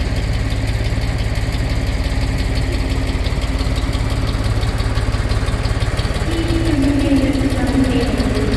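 Railroad turntable's drive machinery running: a steady low mechanical rumble with a rapid, even pulse. About six seconds in, a louder higher tone comes in, steps down a little and stops about two seconds later.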